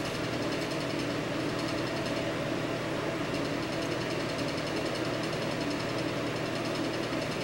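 Steady mechanical hum of a small motor running without change.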